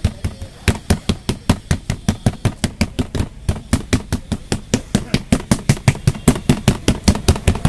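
Bare palms patting and slapping a large sheet of paratha dough flat on an oiled plastic tabletop: a quick, steady run of slaps, about five a second.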